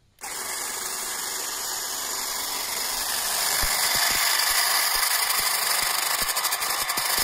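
Ryobi RY18PCA cordless patio cleaner running, its electric motor spinning a nylon brush that scrubs moss and weeds from the joints between paving stones: a steady whirring hiss that grows louder about four seconds in, with scattered light ticks.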